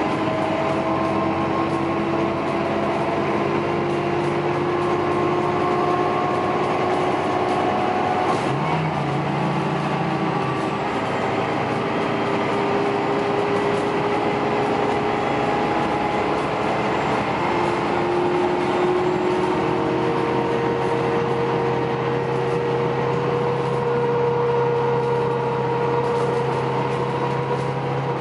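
Articulated bus engine and drivetrain running under way, heard from inside the passenger cabin: a steady hum with a whine that climbs slowly in pitch, drops back about two-thirds of the way through and climbs again as the bus keeps accelerating.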